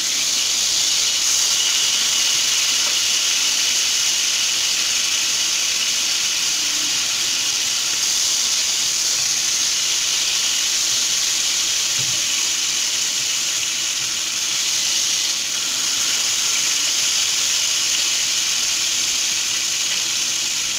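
Beef fillet steak sizzling in butter and oil in a frying pan: a steady hiss of bubbling fat.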